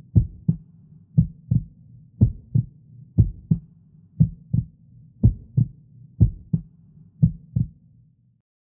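Heartbeat sound effect: paired low thumps, lub-dub, about once a second over a low hum, stopping shortly before the end.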